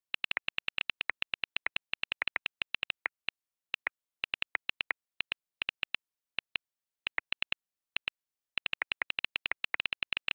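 iPhone on-screen keyboard clicking as a message is typed: quick runs of sharp key taps, several a second, broken by short pauses.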